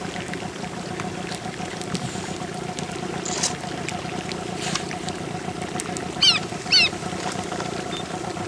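Boat engine running steadily at idle, a low even hum, with a few light water splashes. About six seconds in come two quick high-pitched bird chirps, half a second apart.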